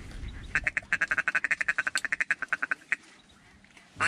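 A duck call blown in a fast, even run of short clucks, about a dozen a second for about two and a half seconds: a feeding chuckle to draw ducks in to the decoys.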